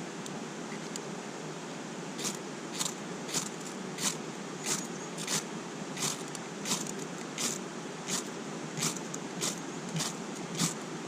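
Steady rush of a mountain stream. From about two seconds in, about fifteen short, sharp strokes come evenly, a bit under two a second, over the water noise.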